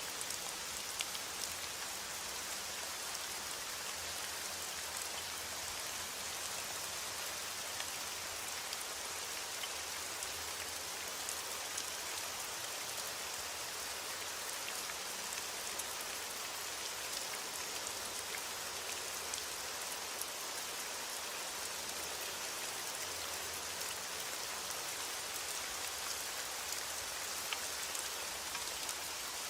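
Steady rain falling, with an even hiss and scattered sharper drop ticks; no thunder.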